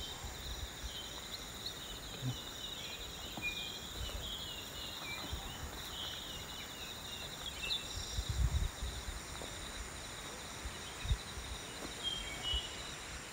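Open-country ambience: a steady high insect drone with scattered short bird chirps, and a few brief low rumbles on the microphone about two-thirds of the way through.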